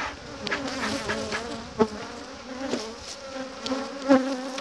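Honey bees buzzing around an open hive of a populous colony, the hum wavering up and down in pitch as bees fly close by, with a few short knocks, the sharpest near the middle and near the end.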